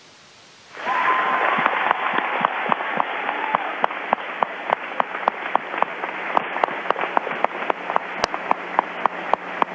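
A small group clapping, starting about a second in: sharp claps about four or five a second over a steady hiss.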